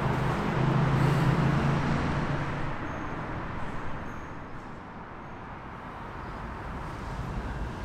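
Street traffic noise with a low vehicle engine hum that fades away about two and a half seconds in, leaving a steady background rumble.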